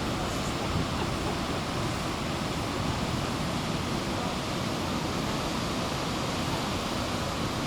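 Steady rushing roar of Kaieteur Falls, a very large waterfall, heard from close to its edge.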